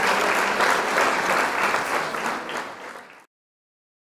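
Large crowd applauding. The applause fades over the third second and cuts off abruptly to dead silence a little after three seconds in.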